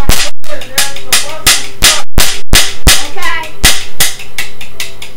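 Orange plastic toy cap gun firing paper caps: a quick run of sharp pops, about three or four a second, loud enough to clip, growing weaker in the last second.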